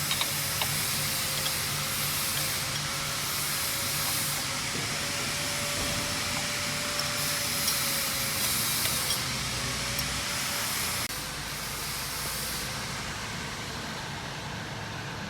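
4-axis CNC wood turning lathe running, with a steady motor hum and whine under a high hiss that swells and fades. The sound drops a little about eleven seconds in.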